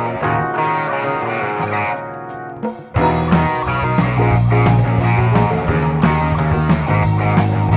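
Live band music: a lighter opening led by guitar, then about three seconds in the full band comes in loud with drums and bass.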